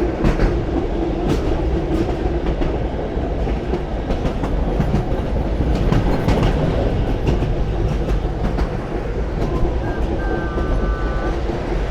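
Running noise of a historic steam-hauled train heard from aboard: a steady rumble of wheels on rails with scattered clicks at the rail joints, and a brief steady tone about ten seconds in.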